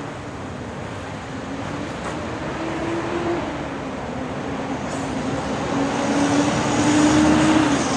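A vehicle's motor hum over steady street noise, wavering in pitch and growing louder over the last few seconds before dropping off near the end.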